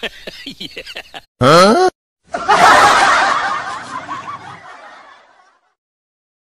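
Snickering laughter in quick rhythmic bursts, broken off by a short loud rising cry, then a loud rushing noise that fades away over about three seconds.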